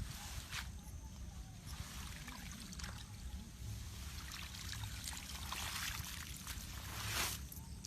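Water trickling and splashing, with a louder rush of water near the end.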